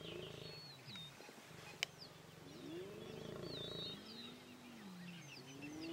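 Spotted hyenas lowing and squealing: faint long low moans that rise and fall in pitch, several overlapping, with short high squeals above them.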